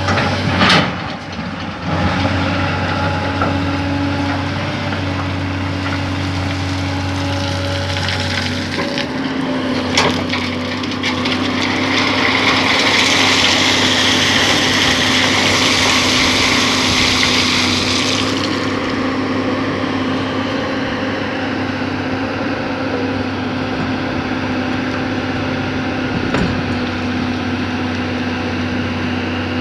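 Hydraulic excavator running steadily while digging. Its engine note changes about nine seconds in, a rushing hiss rises for several seconds in the middle, and a few sharp knocks come from the bucket and machine at work.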